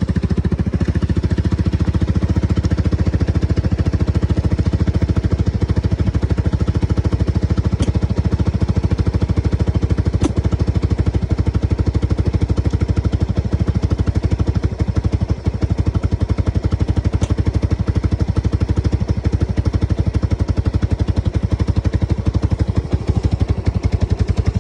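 1987 Yamaha Big Bear ATV's single-cylinder four-stroke engine idling with a steady, fast, even pulse, with a few faint clicks.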